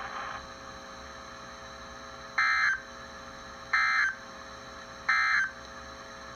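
Emergency Alert System end-of-message data tones over NOAA Weather Radio: three short warbling bursts about 1.3 s apart, marking the end of the alert message. A steady radio hiss fills the gaps between them.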